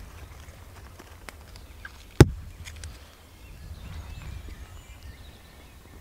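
Small kindling fire crackling faintly, with one loud, sharp snap of wood about two seconds in, over a low steady rumble.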